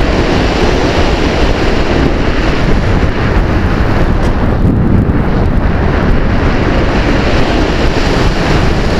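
Steady wind rush buffeting the microphone of a camera mounted on a Multiplex EasyGlider radio-controlled foam glider in flight, with no clear motor tone.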